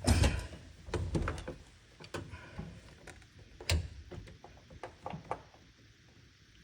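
Knocks and clunks of hand tools against the parts of a dishwasher during a repair. The loudest knock comes right at the start, followed by a scattering of lighter taps and clicks over the next few seconds.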